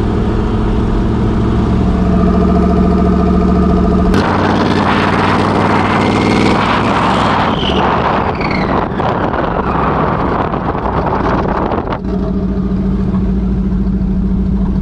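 Twin-turbo Ford 5.0 Coyote V8 of a Mustang idling steadily, heard inside the cabin. About four seconds in, the idle gives way abruptly to a louder rushing noise with a few brief whistling glides, which cuts back to the steady idle about three seconds before the end.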